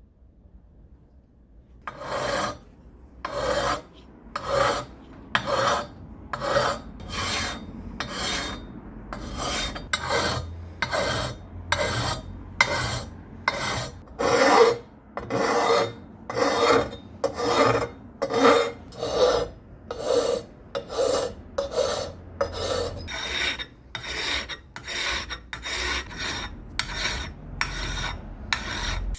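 Repeated rasping hand strokes of an abrasive worked back and forth over a part of an old electric planer under restoration, about one and a half strokes a second. They start after a couple of seconds of quiet.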